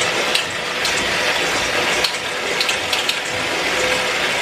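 Electric hand mixer running steadily, its beaters creaming eggs and sugar in a stainless steel bowl: a noisy, even whirr with scattered sharp clicks.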